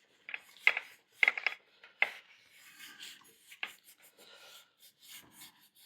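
Irregular rubbing and scraping strokes as old foam-surround glue residue is scrubbed off the edge of a subwoofer speaker cone with alcohol, a few sharper strokes standing out in the first two seconds.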